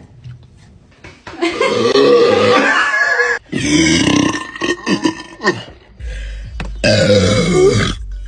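A person burping loudly after chugging a bottle of fizzy Sprite: three long, drawn-out belches in a row, the first starting about a second in.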